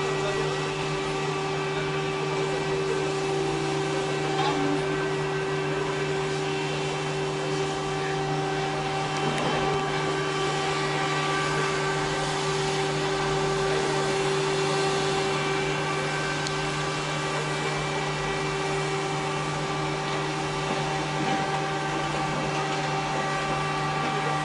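An engine or motor running steadily at constant speed: a continuous hum made of several steady tones, with no pauses or knocks.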